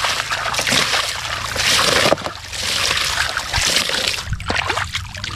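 Water splashing and sloshing as a hand scoops wet sand out of a plastic toy truck bed standing in shallow water and sweeps water through it to rinse it clean, in several surges of splashing.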